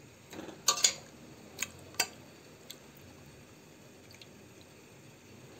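Boiled chicken pieces being lifted out of a pot of broth one by one: a few sharp clinks and drips against the pot in the first three seconds, then only faint background.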